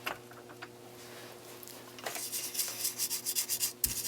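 A toothbrush scrubbing the plastic earpiece of a cordless phone handset to clear out dirt. After a few light clicks, a rapid scratchy back-and-forth scrubbing starts about halfway through. There is a low thump near the end.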